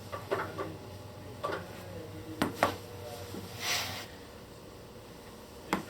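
Sharp clicks and pops during a chiropractic adjustment: a few scattered ones, the loudest two in quick succession a little under halfway through, and one more near the end. Around the middle there is a short breathy hiss.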